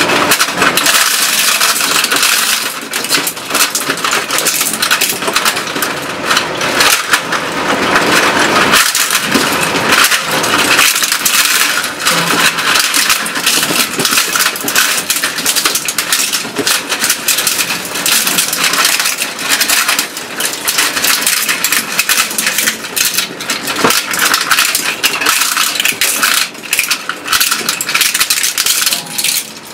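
Twin-shaft shredder's steel cutter discs chewing up a 1:18 scale model Porsche Cayenne: a loud, continuous crunching and cracking of plastic and metal, thick with sharp snaps and clinks of breaking pieces, with a few brief lulls.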